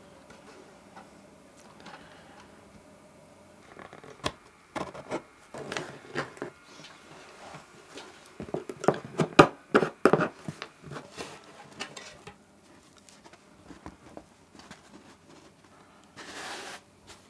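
Handling sounds: a run of sharp clicks, taps and scrapes, busiest and loudest about halfway through, then a few scattered ticks and a short rustle near the end.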